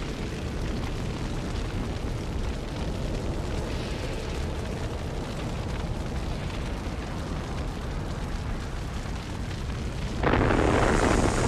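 Sound-effect rumble laid over footage of a solar eruption: a steady low rumble, then a sudden, louder blast of noise about ten seconds in.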